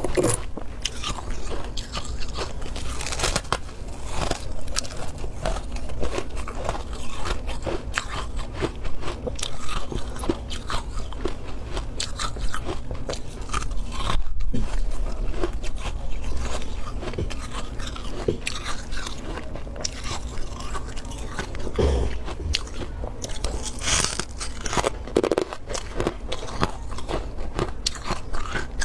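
Close-up biting and chewing of powdery freezer frost: a dense, continuous run of soft, irregular crunches.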